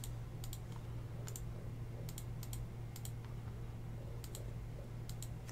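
Computer keyboard typing: scattered, irregular light key clicks, fairly quiet, over a steady low hum.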